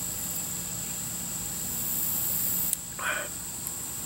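Steady high-pitched insect chorus. About three seconds in, a click and a short breathy sound as a man finishes a sip from a glass.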